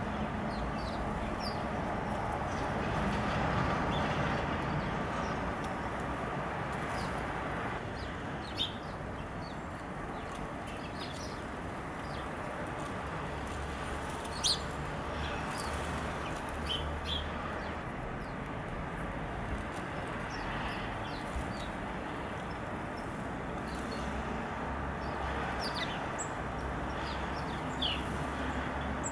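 Small birds at a winter feeder giving short, high chirps at irregular intervals, over a steady background rumble.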